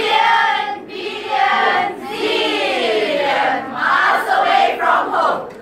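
Choral speaking: a large group of mostly women's voices chanting words in unison, in phrases of about a second with short breaks between them. Near the middle one longer phrase sweeps down and back up in pitch.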